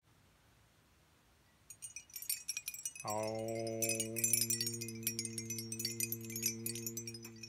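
Glass wind chime tinkling: many quick, high clinks as the hanging glass pieces are pushed by hand and knock together. About three seconds in, a steady low held note with overtones comes in under the chimes and holds.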